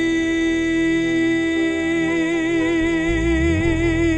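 Gospel worship song: a singer holds one long note, a vibrato coming in about halfway, over a low sustained accompaniment.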